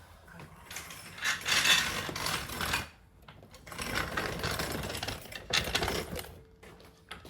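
Hand ratchet wrench clicking rapidly in two runs with a short pause between, as a suspension bolt is turned.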